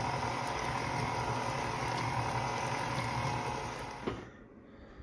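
Electric stand mixer running steadily, its flat beater churning thick banana bread batter in a metal bowl, with a steady motor whine. The sound stops abruptly with a click about four seconds in.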